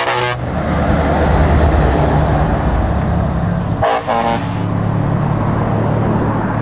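Scania truck's diesel engine running as it drives past, with two short air-horn blasts: one right at the start and one about four seconds in.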